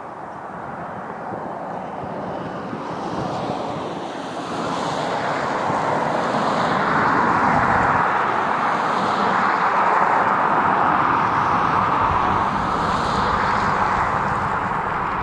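Diesel freight locomotives approaching at the head of a train, a steady rumbling noise that grows louder from about four seconds in and then holds. Some wind noise on the microphone.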